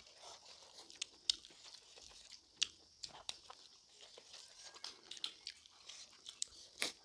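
Two people eating smoked pork and rice with their hands, close to the microphone: irregular chewing, lip smacking and small clicks, with a few sharper bites.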